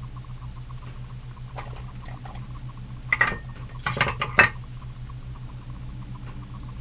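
Kitchenware clinking and knocking against a glass baking dish: a couple of sharp knocks with a brief ring about three seconds in, then a quick cluster of clinks around four seconds, over a steady low hum.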